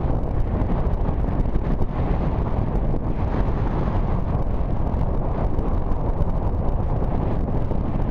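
Strong storm wind buffeting the microphone: a steady, loud, low rumble that flutters without letting up.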